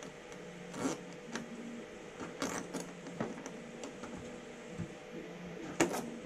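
Small metal wrench clicking and scraping against a fastener on a small plastic part: a handful of sharp clicks, the loudest near the end, over a faint steady hum.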